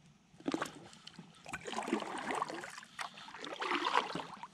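Kayak being paddled: water sloshing and trickling off the paddle blade in irregular strokes, with a couple of light knocks about half a second in.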